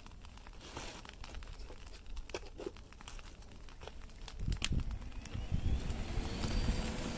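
Scattered crackles and clicks over a low rumble, then about five seconds in a high-power PC fan spins up with a rising whine that settles into a steady whine and a rush of air blown into the coal furnace.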